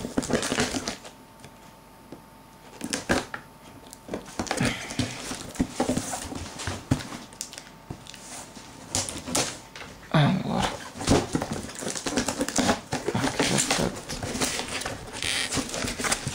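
Brown packing tape being peeled and ripped off a cardboard box, with cardboard scraping and rustling as the flaps are pried open; irregular rips and scrapes, quieter for a few seconds near the start and busier in the second half.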